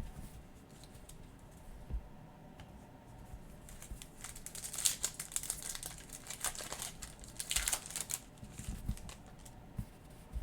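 A trading-card pack's plastic wrapper being torn open and crinkled by hand, with the cards handled and set down. The rustling comes in two denser spells, about halfway through and again near eight seconds.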